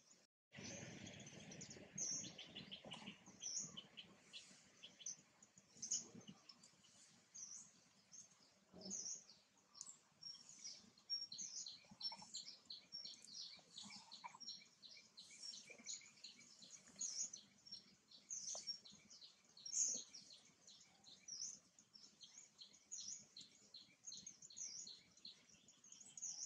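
Faint bird chirping: short, high chirps repeated many times, coming thicker and faster in the second half.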